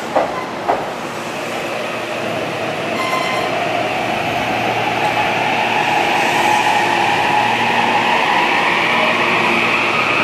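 Kintetsu 22600 series limited express, coupled with a 12400 series set, pulling away from the platform: the electric traction motors whine, rising slowly in pitch and growing louder as the train gathers speed past. Two sharp clicks half a second apart at the start.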